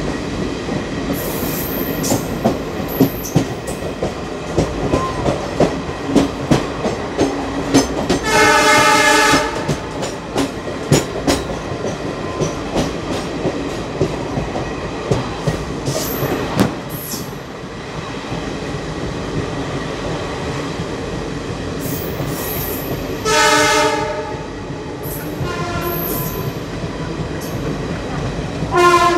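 ICF passenger coach running behind twin Alco WDM3A diesel locomotives: steady rail noise with wheels clicking over rail joints, and two diesel horn blasts of about a second each, a third of the way in and again about four-fifths through.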